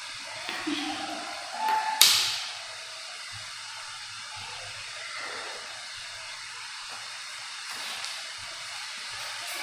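Steady background hiss of room noise, with one sharp knock or bang about two seconds in that dies away within half a second.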